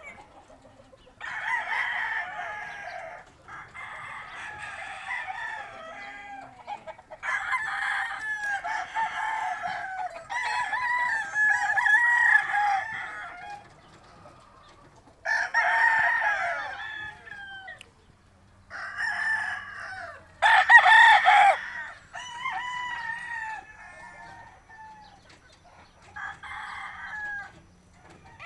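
Several roosters crowing one after another, about nine crows, some overlapping, with the loudest about two-thirds of the way through.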